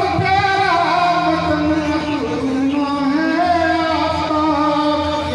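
A voice singing a poem in long held notes that bend and glide in pitch.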